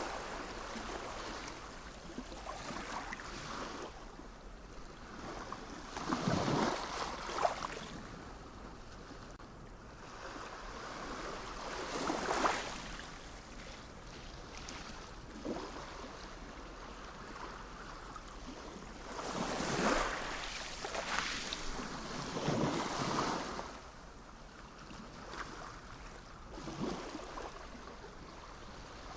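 Sea waves washing onto the shore in a steady hiss, with a louder wave breaking every several seconds.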